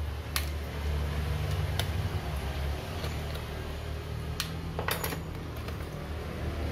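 A few sharp clicks and a short clatter from a small hand tool and a laptop's plastic case being handled, the clatter about five seconds in, over a steady low hum.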